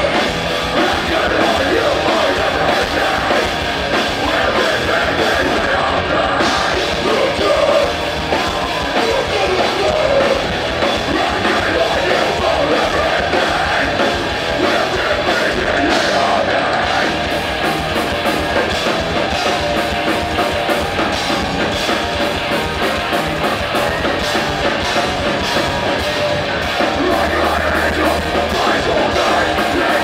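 Live punk band playing loud, with drums and yelled vocals.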